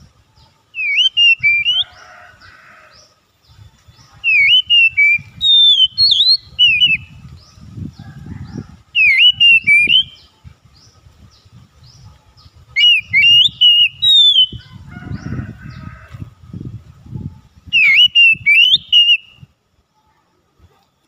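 Oriental magpie-robin singing: clear whistled phrases that slide up and down in pitch, in five loud bursts a few seconds apart. Faint high chirps and a low rumble sit underneath.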